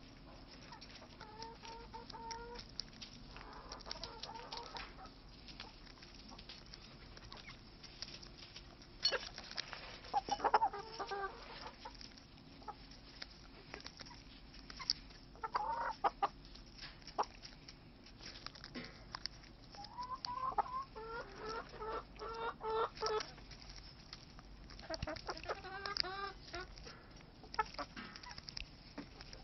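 Laying hens clucking in runs of short repeated notes while pecking at toast held in a hand, with sharp pecking taps.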